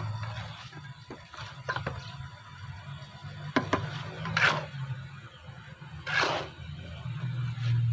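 Trowel and wooden float working wet cement mortar in a jali mold: several light taps, then two longer scraping strokes in the second half, over a steady low hum.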